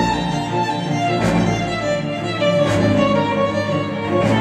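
Instrumental music with a string melody, played back through KEF R3 bookshelf speakers driven by a Marantz PM7000N integrated amplifier, with a sharp hit about every second and a half.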